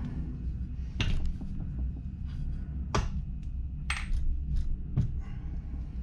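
Metal engine parts clinking and knocking as the split crankcase of a Kawasaki Ninja 400 engine is handled and set down on a workbench: about four sharp clinks over a low steady hum.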